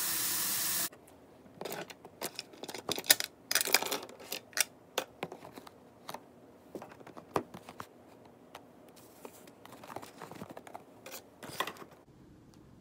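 A loud steady hiss cuts off about a second in. Then comes a run of clicks, knocks, scrapes and rustles as a phone is handled and tucked in among objects to hide it, loudest in the first half and thinning out near the end.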